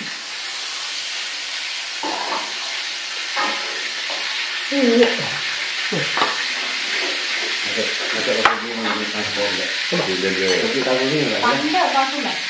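A steady hiss, like food frying, with a single sharp click a little past the middle and murmured voices in the second half.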